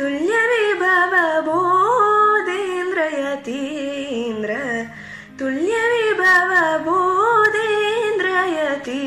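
A young woman singing a devotional song solo in long, ornamented phrases that glide up and down, with a short breath about halfway, over a steady low drone.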